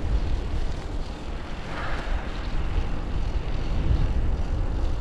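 Wind buffeting the microphone while riding: a steady, deep rumbling rush with no voices over it.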